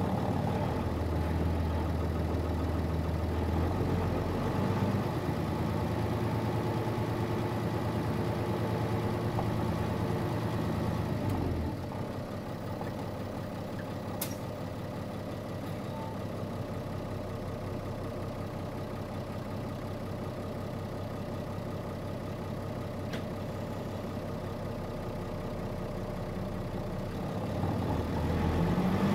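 Nissan Diesel Space Runner (KC-RM211GAN) mid-size bus's diesel engine, heard from inside the bus. It runs under load for about the first twelve seconds, then drops to a steady idle, and starts to pull again near the end. A single click comes shortly after it settles.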